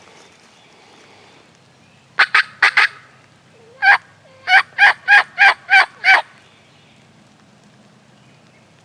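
Turkey yelps: a short broken group of four notes, a single note, then a run of six evenly spaced yelps at about three a second.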